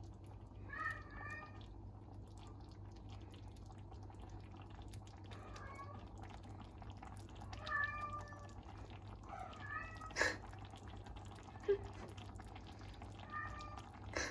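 A house cat meowing faintly, about five short calls spaced a few seconds apart, with one sharp click about ten seconds in.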